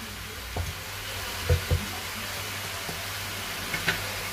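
Chop suey vegetables in sauce sizzling and simmering in a pan, with a steady hiss. A few short knocks of a utensil against the pan come through, two close together about a second and a half in.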